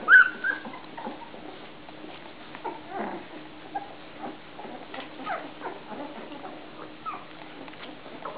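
Newborn puppies squeaking and whimpering: a few sharp high squeaks right at the start, then scattered short, fainter squeaks and grunts.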